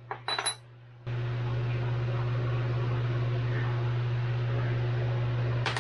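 A quick metallic clink of a broken connecting-rod fragment on aluminium engine parts. About a second in, a loud steady machine hum with hiss starts and runs until it cuts off suddenly near the end.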